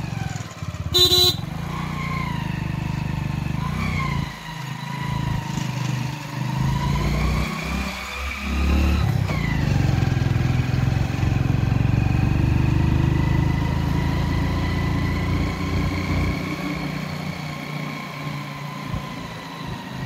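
Motorcycle engine running steadily while riding, with a short horn beep about a second in.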